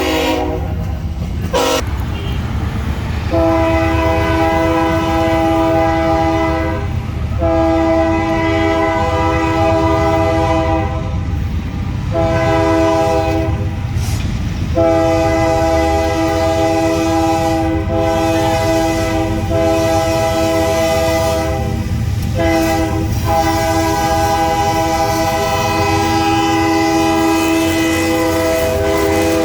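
Diesel locomotive air horn sounding a chord of several tones in a series of long blasts, one of them short, over the low rumble of the moving train.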